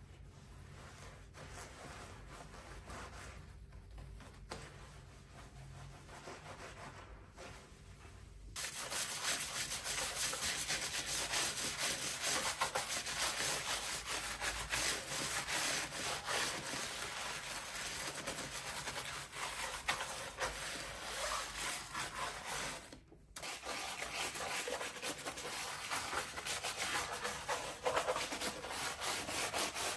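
Plastic-bristled dish brush scrubbing a soapy laptop keyboard: a steady scratchy rubbing. It is fainter for the first few seconds, then suddenly much louder from about a third of the way in, with one brief break later on.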